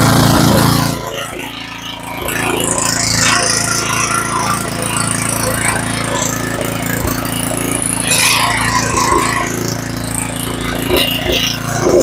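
Small four-stroke engine of a Yard Machines tiller running smoothly on a freshly rebuilt carburetor, with the tines spinning free. The sound dips about a second in, then picks up and grows noisier about two and a half seconds in, and stays steady after that.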